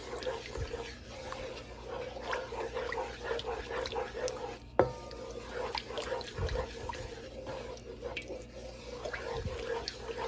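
Fried onions sizzling and crackling in hot oil in a pan, with many small pops, as a wooden spatula stirs and scrapes them. A sharp knock about five seconds in is the loudest moment.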